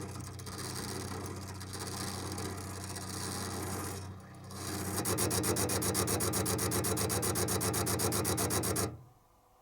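Single-rotary inverter compressor of a Panasonic CU-227CF air conditioner outdoor unit, running uncovered, with a low hum. About halfway through the sound turns into a louder, fast, even pulsing, and near the end it stops abruptly.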